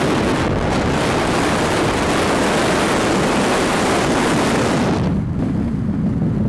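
Wind rushing over the camcorder microphone from a moving car, over a steady low road rumble; the rush drops off suddenly about five seconds in, leaving the rumble.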